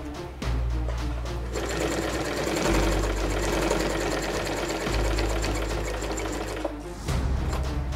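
New Home Janome 535 heavy-duty sewing machine running at speed, stitching a zigzag seam through thick black fabric. It starts about a second and a half in and stops near the end, over background music.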